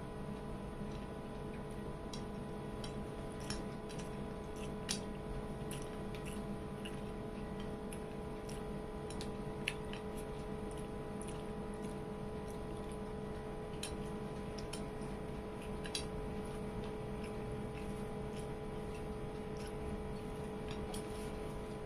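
Small irregular clicks and squishes of fingers mixing rice on a plate and of chewing, over a steady background hum.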